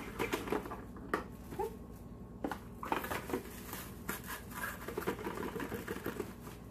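Plastic wrap being picked at and pulled off its roll in the box: scattered light clicks, scratches and crinkles, with a denser rustle of the film about five seconds in.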